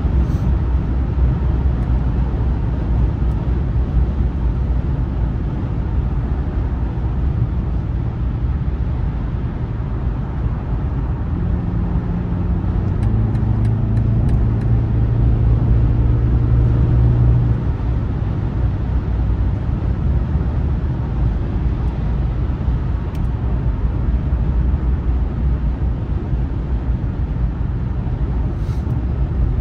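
Cabin noise of a BMW 330i at highway speed: steady low road and engine rumble. About a third of the way in, a deeper steady drone comes up for several seconds and then drops away.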